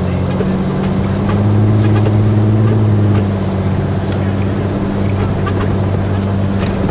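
Jeep engine running steadily under load while driving through deep snow. It grows louder for a second or two about a second in. Scattered light clicks sound over the engine note.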